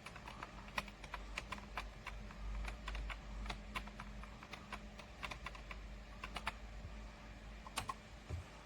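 Typing on a computer keyboard: irregular key clicks in quick runs, with short pauses between them.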